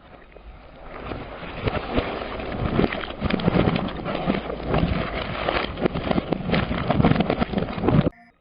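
Things being crushed: a dense, continuous run of crunching and cracking that grows louder from about a second in and cuts off abruptly near the end.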